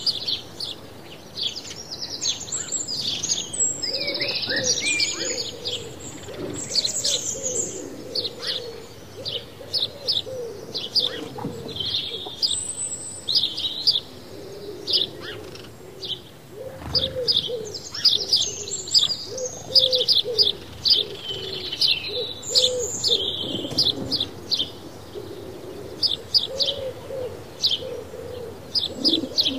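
House sparrows chirping without a break, many short overlapping chirps. Beneath them run low, wavering cooing calls.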